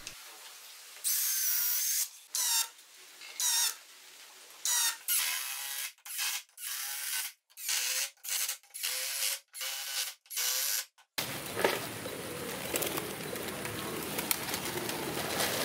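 Cordless drill driving screws into plywood in about a dozen short whirring bursts, each a second or less, with brief pauses between. About eleven seconds in, the sound cuts to a steady outdoor background with pigeons.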